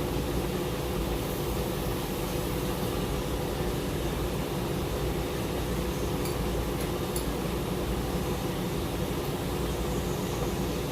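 Steady mechanical hum with a low drone and a few held tones, unchanging throughout, with a couple of faint sharp ticks about six to seven seconds in.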